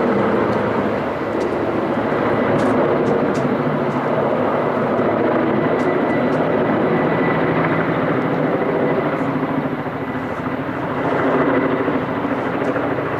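A firefighting helicopter hovering, its rotor and turbine engines running in a steady, unbroken noise.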